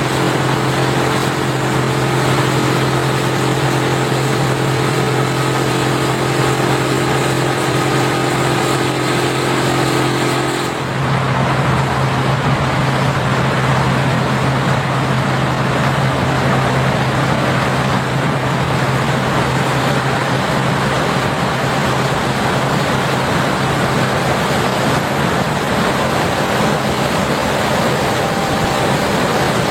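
Case IH Axial-Flow combine running steadily while harvesting corn: a constant engine and machine drone. About eleven seconds in the sound changes abruptly and a higher steady hum drops out.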